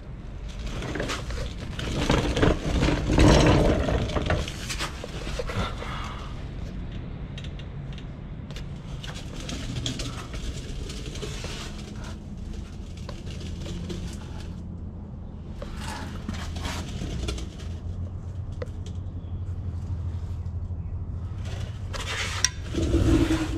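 Handling noise from moving around under a truck with a handheld camera: scattered clicks, knocks and scrapes, thickest in the first few seconds, over a steady low hum, with a louder burst near the end.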